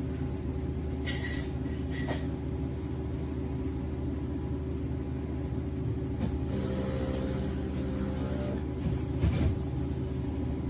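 De'Longhi Dinamica Plus fully automatic espresso machine running with a steady mechanical hum after being switched on, heating up. There are two short clicks near the start, and about two-thirds of the way through the hum changes tone.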